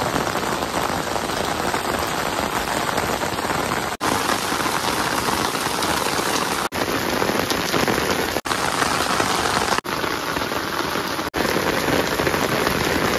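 Heavy rain falling steadily and streaming off a house roof. The sound is a dense, even hiss that cuts out for an instant several times.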